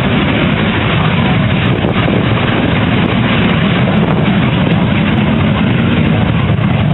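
Aircraft engine running loudly and steadily nearby, a constant rumbling drone without breaks.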